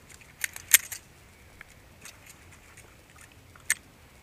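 A few sharp metallic clicks about half a second in, and a single one near the end, from handling a Beretta M9 pistol held pointed at the ground.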